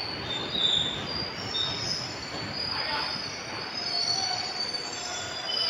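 Indian Railways passenger coaches rolling past a platform as the train comes in to stop, wheels squealing in several high overlapping tones over a steady running rumble.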